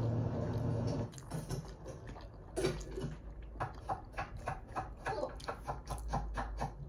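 Close-up eating sounds: chewing and wet mouth clicks, two to four a second, as steamed dumplings are eaten off a metal fork. A sharp knock about two and a half seconds in is the loudest sound. A low steady hum stops about a second in.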